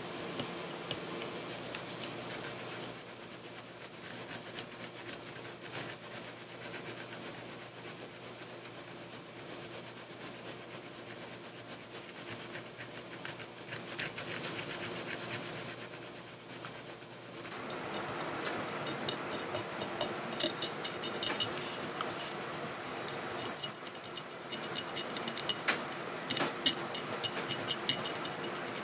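Fingertips and a wooden toothpick rubbing and scraping caked soil off a cast brass CSA belt plate: a faint, scratchy rubbing that gets louder about two thirds of the way in, with many small scraping ticks.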